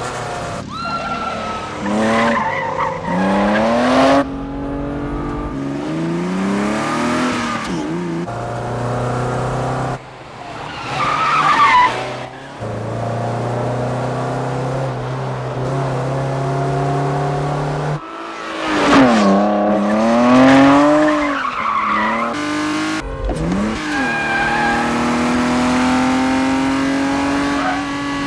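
Car-chase engines of a BMW M5 and a Peugeot sedan revving hard, pitch rising and falling again and again through the gears, with tyres squealing in several bursts, loudest near the middle and about two-thirds through. Near the end one engine holds a steady high note at speed.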